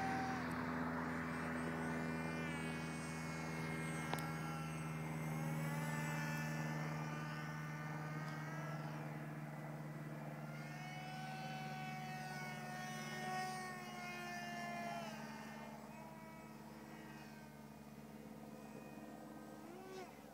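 Motor and propeller of a small radio-controlled EPP foam model airplane flying overhead: a steady hum and whine whose pitch glides up and down as it passes back and forth. It fades in the second half as the plane flies farther off.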